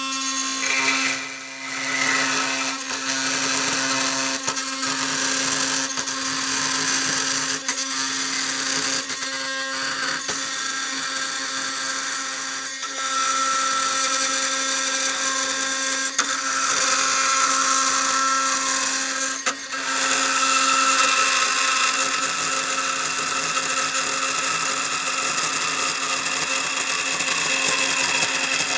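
Oscillating multi-tool fitted with a carbide-toothed metal-cutting blade, running and cutting under load. A steady buzzing hum and a harsh rasp, with a squealing tone at times in the middle, and several brief dips where the cut eases off.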